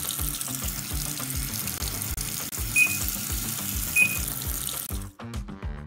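Water spraying steadily from the sprinkler hose of a LEGO Technic fire truck, cutting off about five seconds in. Background music with a regular beat plays under it, with two short high beeps near the middle.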